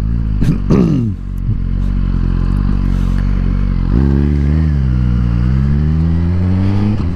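Suzuki GSX-R1000R's inline-four engine heard from inside the rider's helmet, with wind noise. Revs fall briefly near the start, it runs low and steady through the turn, then picks up about four seconds in and climbs as the bike accelerates away.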